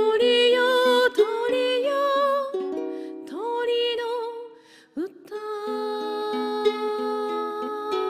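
A woman singing a slow ballad to her own strummed ukulele, her voice wavering with vibrato on held notes. About five seconds in, the music dips briefly and then settles into a long held chord.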